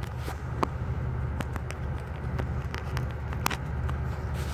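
Steady low rumble of a ferry's engines, with scattered sharp clicks over it.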